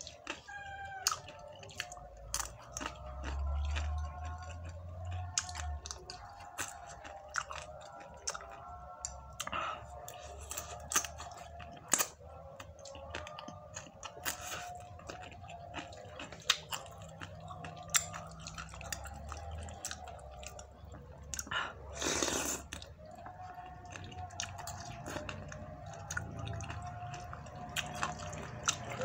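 Close-up eating sounds of a person chewing and slurping spicy chicken noodles, with many short wet smacks and clicks of a fork against the plate. There is one longer noisy burst about three quarters of the way through.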